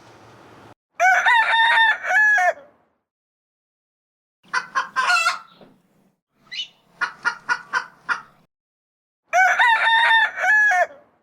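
A rooster crowing twice, about a second in and again near the end, with a run of short chicken clucks in between.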